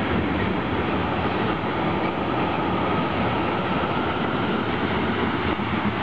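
Freight train tank cars rolling past on steel rails: a steady, dense rumble of wheels on track, with a faint thin ring about two seconds in.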